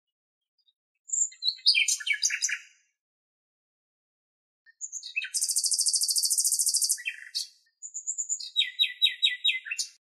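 Common nightingale (Luscinia megarhynchos) singing three phrases with short pauses between them: a jumble of quick notes, then a long, high, very rapid trill, then a string of fast repeated notes.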